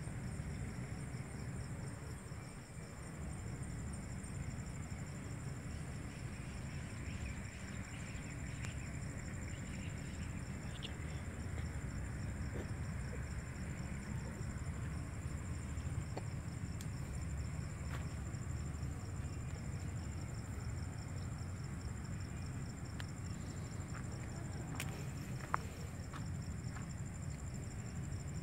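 Crickets chirping steadily at night, a high pulsing chirr in two pitches, over a low rumble. A few faint clicks, with one sharper click about three-quarters of the way through.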